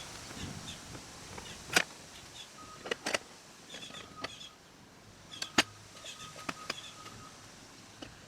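Scattered sharp knocks and clicks, some in quick pairs, from handling a sawn log cant and the chainsaw mill frame, with a faint high tone coming and going in between.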